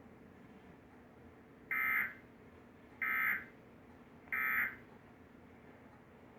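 Emergency Alert System end-of-message signal: three short, buzzy data-tone bursts, each about half a second long and a little over a second apart, marking the end of the alert.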